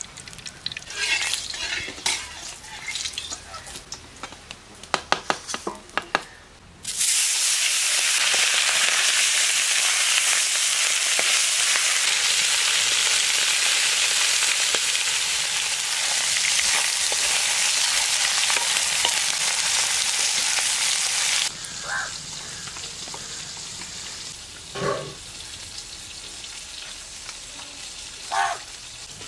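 Small dhela fish frying in hot mustard oil in a metal kadai. A few clicks and knocks of utensils come first, then a loud, steady sizzle starts suddenly about seven seconds in as the fish hit the oil. It runs for about fifteen seconds before cutting off, leaving quieter background with a few short faint calls.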